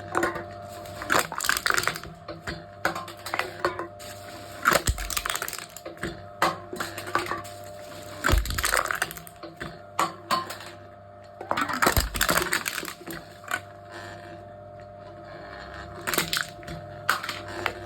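Aluminium cans being crushed by a machine: repeated bursts of crackling, crumpling metal, with three heavy thumps about three and a half seconds apart, over a steady hum.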